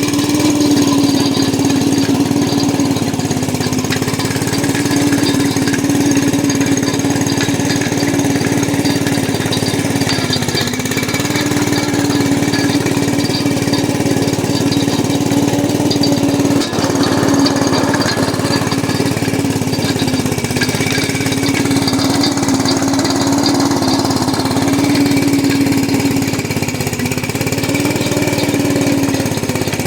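Small gasoline engine of a trencher running steadily under load while cutting an irrigation trench, its pitch sagging briefly about a third of the way in and again near the end. A single click comes just past halfway.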